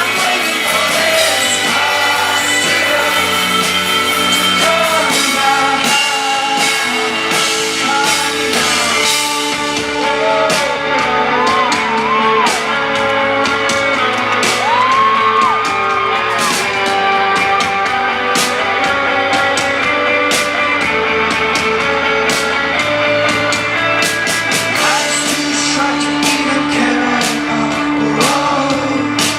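Indie rock band playing live over a large sound system: sustained chords with drum hits, a voice singing over them, and shouts and whoops from the crowd.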